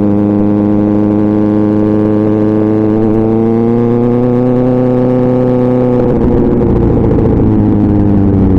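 2024 Kawasaki Ninja ZX-6R's inline-four engine running through an SC Project exhaust, its pitch climbing slowly for about six seconds. Then the note turns rough and ragged and the pitch starts to drop.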